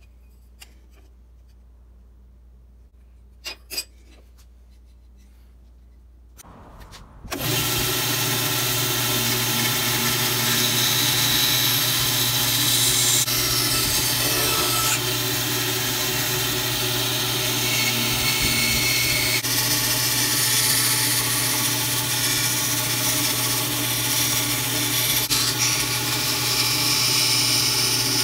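Quiet at first with a couple of small clicks. From about seven seconds in, a band saw runs steadily with a strong hum while cutting through the wood of an old handsaw handle.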